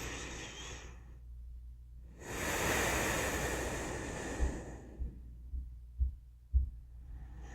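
A person breathing slowly and calmly. One breath fades out in the first second, a longer and louder breath runs from about two seconds to nearly five, and the next breath begins near the end. A few soft, low thumps fall in the pause between breaths.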